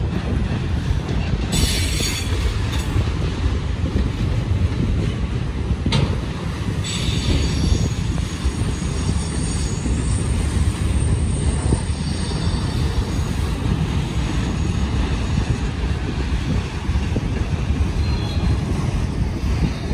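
Norfolk Southern freight train rolling slowly through a tight curve: a steady rumble of the cars, with high-pitched wheel flange squeal coming and going, strongest about two seconds in and again around seven seconds.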